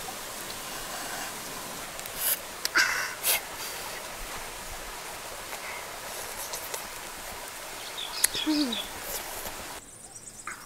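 Steady outdoor background hiss, broken by a few short sharp noises two to three seconds in and again near the end, along with a brief low falling sound.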